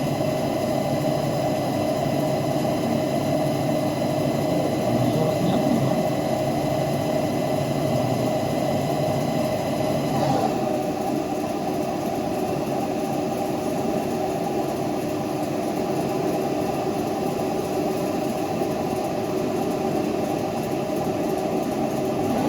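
CNC lathe running while machining a steel pinion: a steady machine hum with several steady whining tones, which shift suddenly to a new set about ten seconds in.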